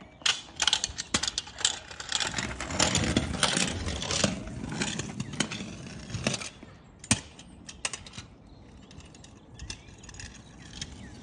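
Kick scooter rattling and clicking as it is ridden over a rough concrete driveway. The clatter grows louder, then dies away after about six seconds as it moves off, with one sharp knock a second later.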